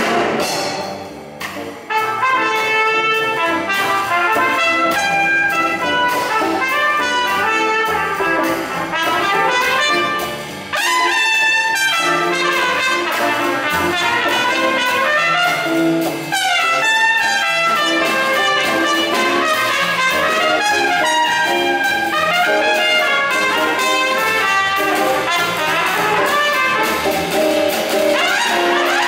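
Trumpet solo in a live jazz band, with a drum kit keeping time on the cymbals underneath. The melody runs in long phrases with slides between notes, breaking off briefly about a second and a half in and again about ten seconds in.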